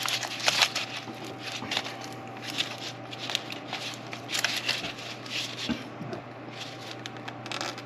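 Scattered light clicks and rustling of hands handling hoses and plastic engine parts under the hood, over a steady low hum.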